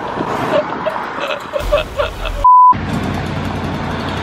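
Street traffic noise with a car passing close by. About two and a half seconds in comes a short, loud, pure beep tone of the kind that bleeps out a swear word.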